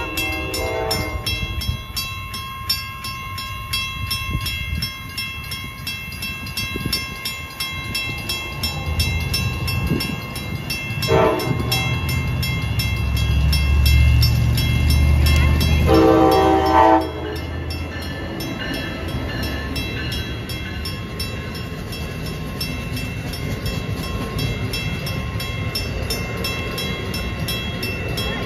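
Amtrak ACS-64 electric locomotive sounding its horn as it approaches and passes through a grade crossing: a blast at the start, a short toot about 11 seconds in and a longer blast about 16 seconds in. The low rumble of the train builds to its loudest as the locomotive goes by, then gives way to the steady rolling of the passenger cars, with the crossing bell dinging throughout.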